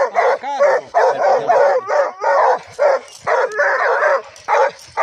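Hunting dogs barking rapidly and excitedly, about two to three barks a second, with a short rising-and-falling whine about half a second in.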